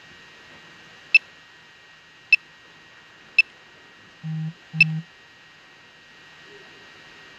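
Three sharp electronic ticks about a second apart, then two short low buzzes in quick succession, over a faint steady hiss.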